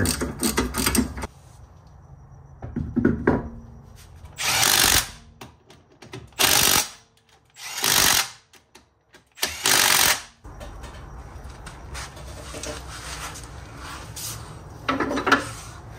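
Cordless impact wrench running the wheel's lug bolts in with four short, loud bursts. Before them, a hand ratchet clicks rapidly for about a second.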